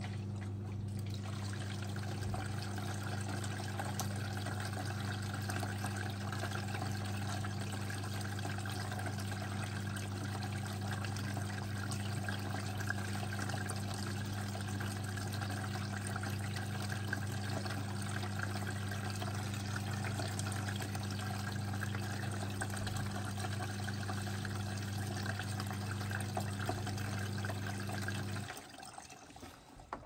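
Beko WMB81341LS washing machine moving water during its rinse: water running with a steady electrical hum underneath, which cuts off suddenly near the end.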